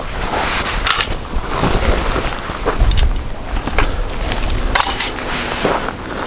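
Gusty wind rumbling on the microphone, with several sharp knocks and rattles scattered through it from a camping tarp and its poles being taken down.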